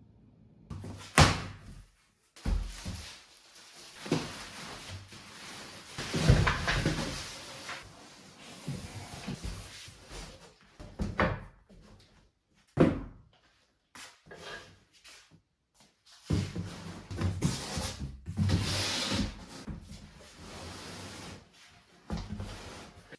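A string of knocks and bangs from handling things in a room, like doors or drawers shutting, between stretches of rustling. It cuts off abruptly to silence a few times, as if short clips are spliced together.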